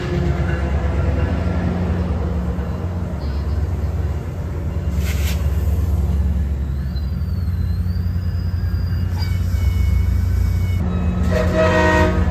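MARC MP36PH-3C diesel locomotive and bilevel passenger cars passing close at speed: a steady low engine drone under rumbling wheel-on-rail noise. A horn sounds briefly near the end.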